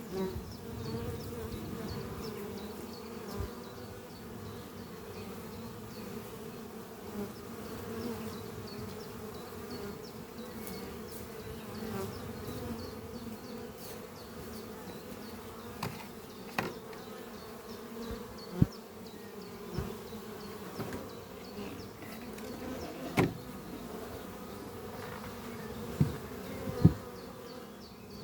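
Honeybees flying at a hive entrance: a steady hum of many wingbeats, with single bees passing close to the microphone in short, louder buzzes several times in the second half.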